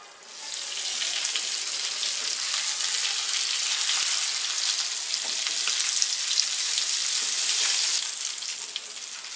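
Semolina-coated pomfret shallow frying in hot oil, sizzling and crackling steadily. The sizzle jumps louder about half a second in, once the lid is off, and eases a little near the end.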